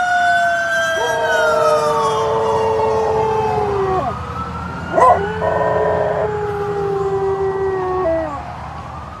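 Weimaraner howling in two long howls, with a siren sweeping slowly up and down in pitch alongside it. A sharp click about five seconds in.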